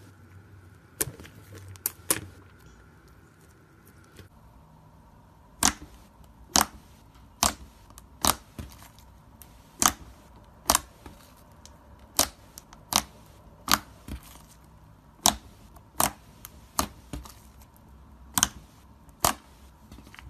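Soft pink slime squeezed and poked by fingers, giving a series of sharp pops and clicks as air trapped in it bursts. A few pops come in the first two seconds, then about one a second from around five seconds in.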